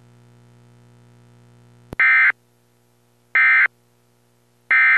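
Emergency Alert System end-of-message code: three short, identical, harsh buzzing bursts of digital data about a second apart, marking the end of the alert. Before them a faint steady hum runs and is cut off by a click.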